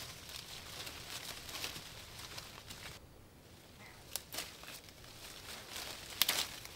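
Rustling and crackling of leafy rambutan branches being handled during picking, with a sharp snap about four seconds in and a louder cluster of snaps near the end.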